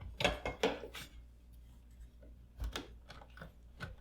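Handling noise of a wall switch being shifted and pushed into its electrical box: a quick run of short scrapes and clicks in the first second, then a few more about two and a half seconds in and near the end.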